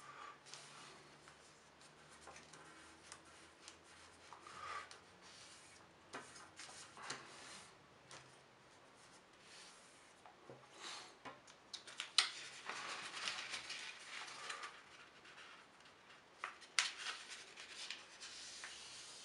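Sheet of paper rustling and scraping as hands fold it and press the creases flat, in faint irregular strokes. Two sharp ticks in the second half are the loudest moments.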